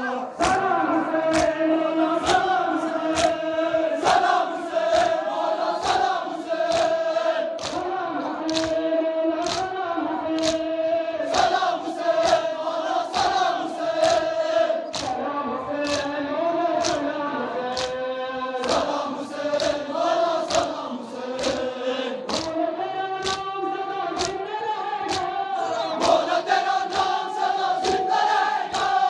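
Crowd of Shia mourners chanting a noha (lament) together, with loud, evenly spaced strikes of chest-beating (matam), about three every two seconds, keeping the beat.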